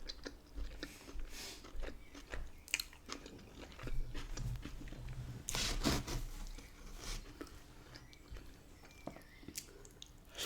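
Close-miked chewing and biting: wet mouth clicks and small crunches of a person eating saucy chicken and onions, with a louder burst of chewing about halfway through.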